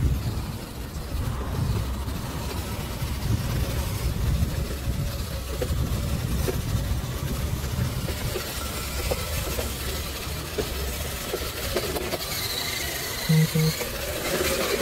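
RGT EX86120 1/10 scale RC crawler driving across sand, its electric motor and drivetrain running under a steady, uneven low rumble. Two short beeps close together near the end.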